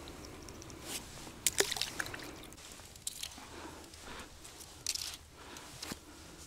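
Wet squelching and dripping from handling a small freshly caught fish and wet fishing line over a hole in the ice, with a cluster of sharp clicks about one and a half seconds in and another near five seconds.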